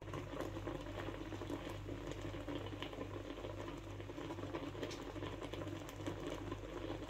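Coconut milk with taro leaves and stems boiling in a wok: a steady bubbling with many small pops.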